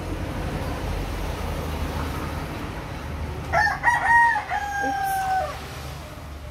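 A rooster crowing once, starting about three and a half seconds in: a few short notes, then a long held note that falls slightly at the end, over a steady low background rumble.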